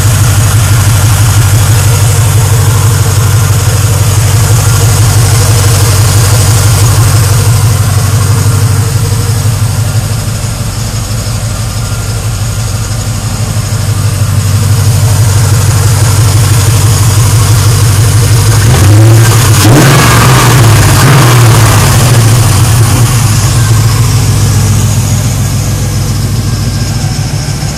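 2001 Camaro Z28's LS1 V8, breathing through Flowtech headers and Y-pipe and an LS6 intake with K&N filter, idling steadily. A little past two-thirds through it is revved once, rising quickly and falling back to idle.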